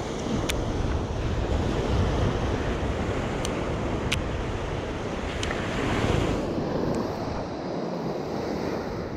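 Surf washing up on a sandy beach, with wind buffeting the microphone; the sound swells for a moment about six seconds in. A few faint, sharp clicks are scattered through it.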